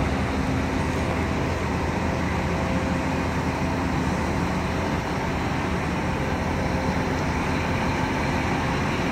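Volvo A40D articulated dump truck's six-cylinder diesel engine running steadily as the truck drives slowly.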